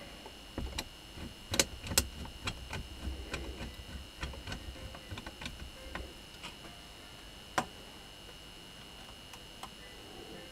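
Hand tools clicking and tapping against a washing machine motor's metal mounting bracket: irregular sharp clicks, the loudest two close together about two seconds in and one more past seven seconds, with soft knocking through the first half.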